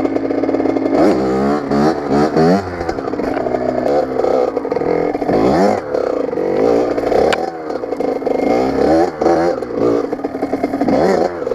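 Two-stroke engine of a 2000 Kawasaki KX80 dirt bike being ridden, revving up and dropping back again and again as the rider works the throttle and shifts gears.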